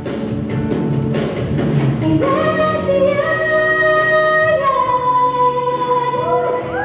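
Two girls singing a pop ballad duet into microphones through a PA; from about two seconds in they hold long notes.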